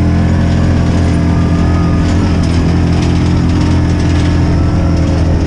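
Small engine running steadily at an even speed, loud and unchanging.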